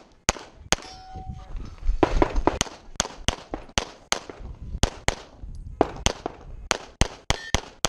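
Walther Q5 steel-frame pistol fired rapidly in a practical shooting stage: about eighteen sharp shots, many in quick pairs, with short breaks between target arrays.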